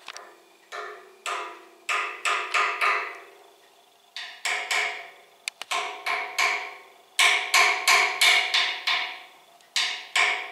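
A toddler banging a toy stick on a sectional metal radiator. There are about twenty sharp strikes in irregular bursts, each ringing and dying away, with a quicker run of strikes in the second half.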